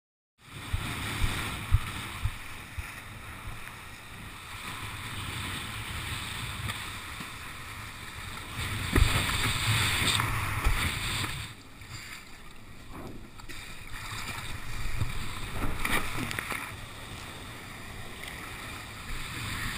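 Wind buffeting an action camera's microphone, mixed with water rushing and splashing against a windsurf board sailing through choppy surf, with occasional knocks. The noise swells loudest for a few seconds in the middle.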